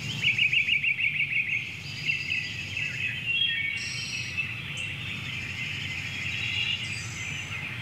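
Birds singing and chirping, with a rapid trill of repeated high notes in the first second and a half and varied short calls after it, over steady low background noise.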